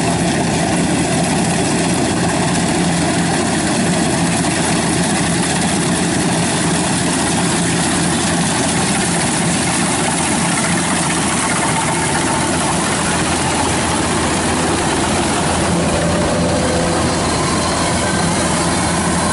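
Kubota combine harvester's diesel engine and threshing machinery running steadily under load while cutting rice, a constant dense mechanical din with a steady low hum.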